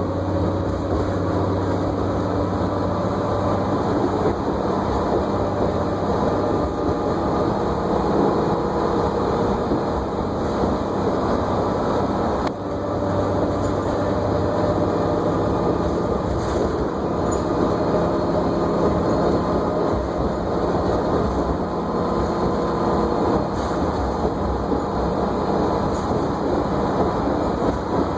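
A New Flyer D40LFR diesel city bus under way, heard from inside: the drivetrain runs with a steady whine over road noise, and its tones shift in pitch a few times as the speed changes.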